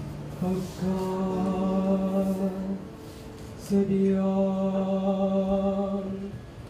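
Unaccompanied voices chanting two long held notes, each about two and a half seconds long, with a short break between them.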